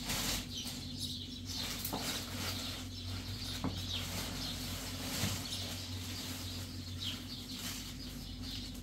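Birds chirping in many short calls over a steady low hum, with a few faint clicks.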